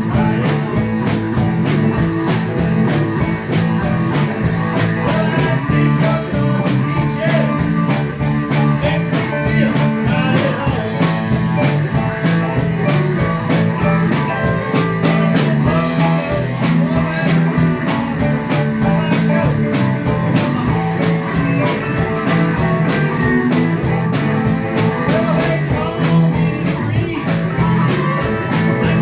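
Five-piece rock band of guitars, bass, keyboard and drum kit playing a blues-rock number at a steady driving beat.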